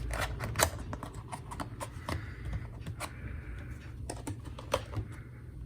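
Cardboard product box being opened by hand: irregular sharp clicks and taps, with two short rasping stretches about two and five seconds in, over a low steady hum.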